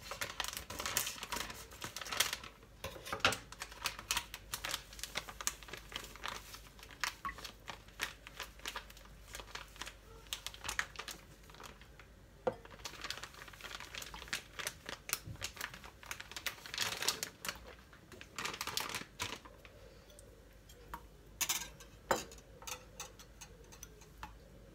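Oat-flour bag rustling and crinkling while flour is poured into a small ceramic bowl, with many irregular light taps and clicks; near the end the flour is tipped into a glass mixing bowl.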